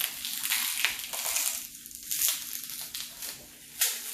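Plastic bubble wrap being handled and pulled off a wrapped product, an irregular crinkling and crackling with one sharper crackle near the end.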